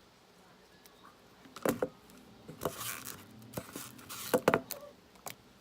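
Handling noise: irregular knocks, taps and short scrapes, the loudest a sharp knock about one and a half seconds in and a cluster of taps a little past four seconds.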